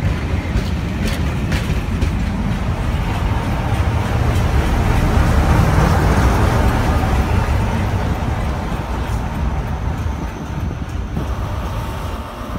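Passenger coaches of a train running past close along the platform: a steady rumble of wheels on rail that builds to its loudest about halfway through and then eases off. A steadier hum comes in near the end as the train clears.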